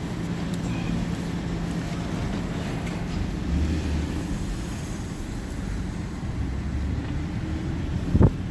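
Hyundai Genesis Coupe rolling slowly in first gear, its engine and road noise running with a steady low hum. A short sharp sound about eight seconds in is likely the brakes, whose squeak the owner blames on seizing brakes.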